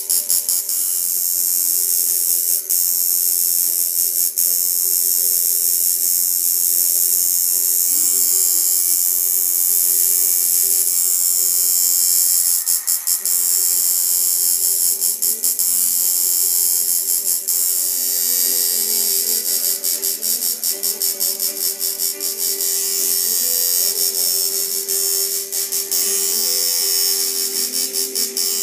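Electric tattoo machine buzzing steadily as the needle works ink into skin, with frequent brief dips in level, more of them in the second half.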